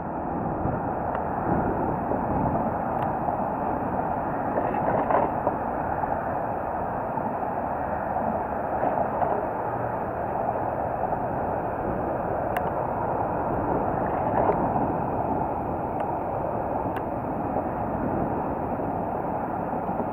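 Steady rushing noise of a bicycle ride: wind on the microphone and tyres rolling over a wet cycle path, with a few faint ticks.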